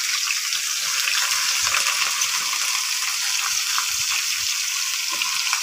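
Steady sizzling of sliced taro frying in a pot with dried anchovies, the sautéing stage before the coconut milk is added.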